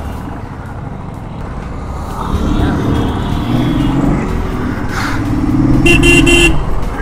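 Motorcycle engine running in city traffic, with the engine and road noise getting louder about two seconds in. About six seconds in, a vehicle horn gives one short, high-pitched honk.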